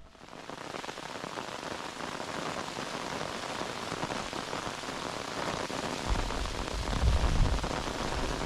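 Steady rain falling, an even hiss of drops. A low rumble joins about six seconds in.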